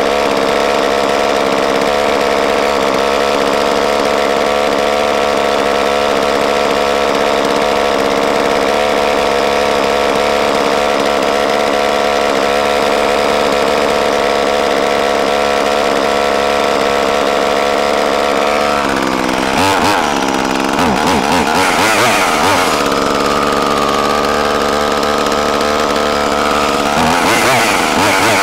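Freshly rebuilt Echo CS-2511T top-handle chainsaw's small two-stroke engine idling steadily. About two-thirds of the way through it is revved up and down several times, holds a higher speed briefly, and is revved again near the end, as the carburettor is being tuned.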